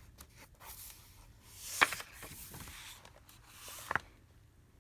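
Paper rustling as the pages of a picture book are handled and turned, with a sharp tap about two seconds in and a smaller one near the end.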